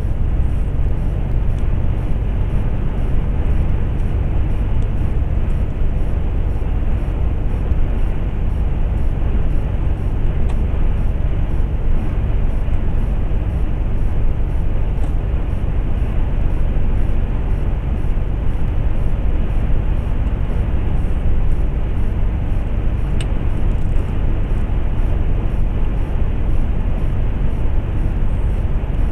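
Lorry cruising at motorway speed, heard from inside the cab: a steady low rumble of engine and road noise that does not change.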